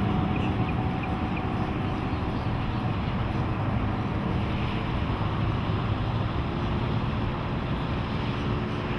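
Johnson 150 outboard motor running steadily.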